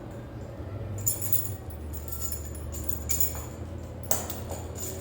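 A few metallic clinks and jangles of gym equipment being handled, the sharpest about a second in and near the end, over a steady low hum.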